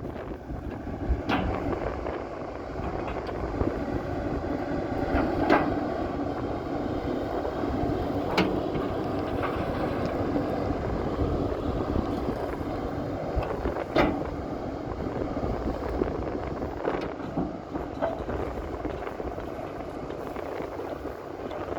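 Excavator running steadily, with a few sharp knocks and clanks from the machine, and wind on the microphone.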